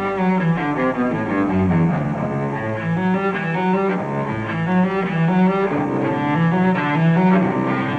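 Instrumental music of bowed strings: a low line of short, repeated notes under a moving higher melody.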